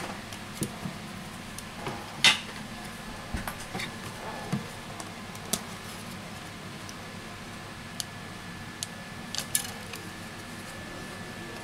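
Scattered light clicks and taps of metal as a Huawei P9 Plus's bent aluminium back cover is handled and bent back into shape by hand, with one sharper click about two seconds in.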